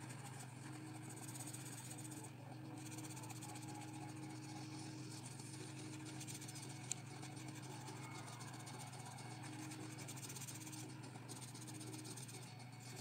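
Graphite pencil shading on paper: a faint steady scratching with brief pauses, over a low steady hum, with one small sharp click about seven seconds in.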